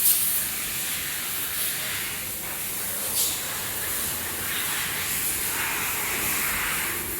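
Steady hissing of air and spray on a factory paint line. A short louder hiss comes about three seconds in, and the hiss grows stronger over the last few seconds.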